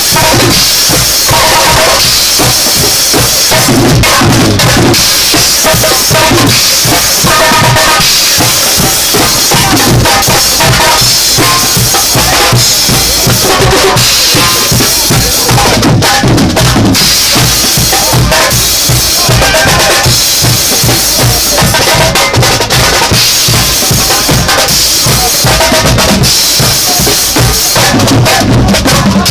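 Carnival street band playing loud music: a drum kit with cymbals and bass drum keeps a steady, driving beat under brass, heard close to the drums.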